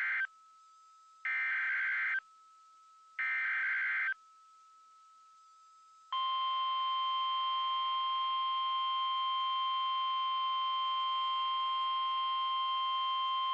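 Emergency Alert System SAME header: the end of one short buzzy digital data burst, then two more about a second each with short gaps between. About six seconds in, the EAS attention tone starts, a long steady electronic alarm tone that continues on.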